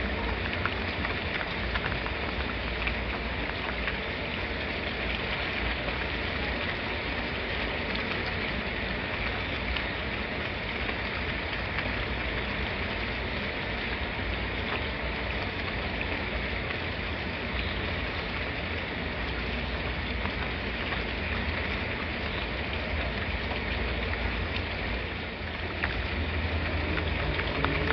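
Steady rain falling, an even hiss dotted with the crackle of individual drops over a low rumble that swells briefly near the end.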